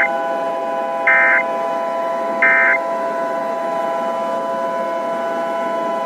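Emergency Alert System end-of-message data bursts: short, buzzy digital chirps about a second apart, ending within the first three seconds. They sound over a steady hiss with several held tones beneath, which carries on after them.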